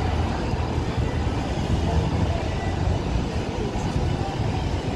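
Downtown street ambience: a steady low rumble of passing traffic.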